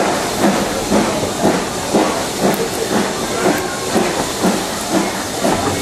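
Steam locomotive working steadily, heard from a carriage of the train it is pulling: regular exhaust beats about twice a second over a constant hiss.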